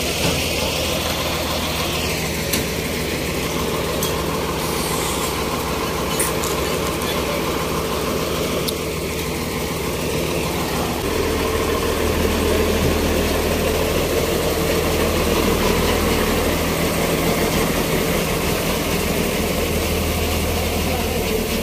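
Military cargo truck engine idling steadily with a low, even hum. It becomes louder and heavier about halfway through.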